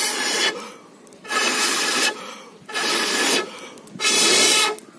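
A person blowing hard on the glowing embers of a small stick-and-paper fire in a brick pit, four long blows about a second and a half apart, to make it flare into flame.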